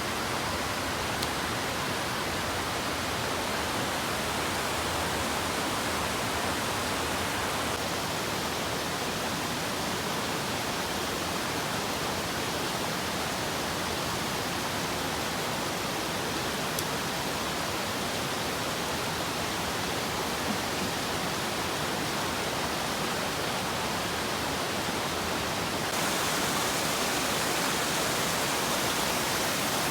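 Waterfall, water rushing in a steady hiss, a little louder and brighter near the end.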